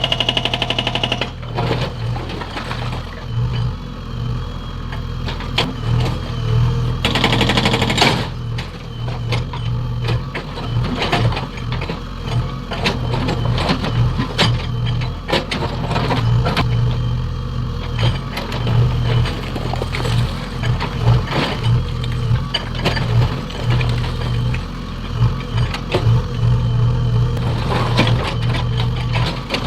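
Diesel engine of a JCB 3DX backhoe loader running steadily under load while its hydraulic breaker hammers, giving many short knocks over the engine hum. There is a brief louder rush about seven seconds in.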